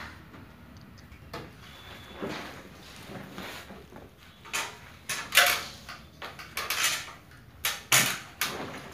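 Plastic AC cleaning cover bag being handled around a ceiling cassette unit, rustling and crinkling in irregular bursts that grow louder and more frequent over the second half.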